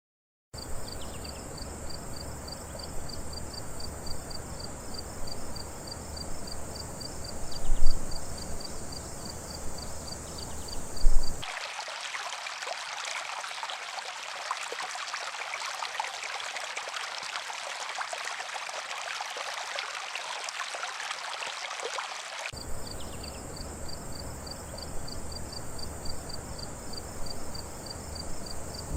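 Outdoor nature ambience: a high chirping pulsing about three times a second over a steady high hiss, with two thumps about 8 and 11 seconds in. Partway through it cuts to the steady rushing of a stream for about ten seconds, then back to the chirping.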